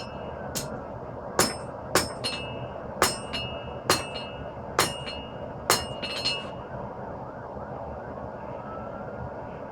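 Hammer blows on hot 5160 spring steel on an anvil while drawing out a knife's handle: about seven ringing strikes, most followed by a lighter bounce tap, stopping about six and a half seconds in. A steady background noise runs underneath, with a faint tone slowly rising and falling.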